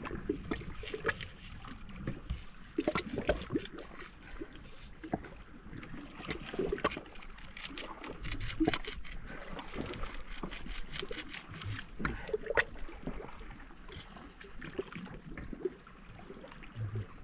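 Water splashing and sloshing, with many short, irregular knocks and clicks.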